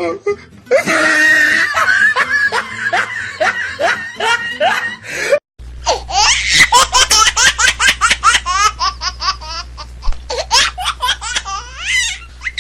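Hearty laughter in rapid, rhythmic bursts. It cuts off abruptly about five and a half seconds in, then resumes higher-pitched over a low steady hum.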